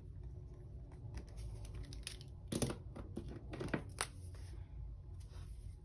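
Quiet handling of paper and stationery on a planner page: faint rustling with a few short, light clicks or taps about two and a half to four seconds in.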